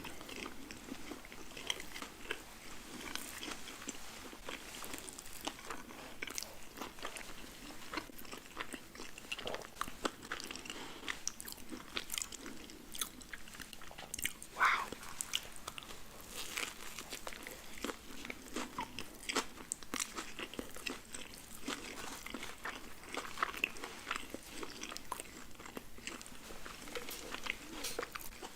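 Close-miked eating: a person biting and chewing burger and fries, with many small irregular crunches and wet mouth clicks. A brief higher-pitched sound stands out about halfway through.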